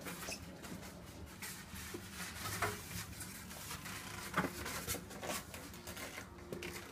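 Faint handling noise: scattered light clicks and rustles, a couple of them sharper, over a low steady hum.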